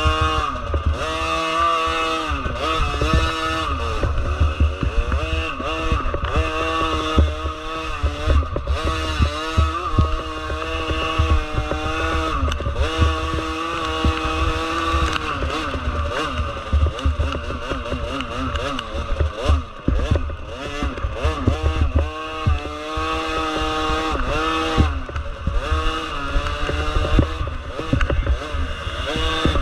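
Motorcycle engine revving up and falling back again and again, its pitch rising and dropping every second or two, with wind rumbling on the microphone.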